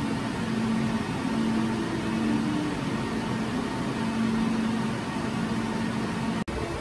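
Steady rushing noise of rack server and storage cooling fans running, with a low hum underneath.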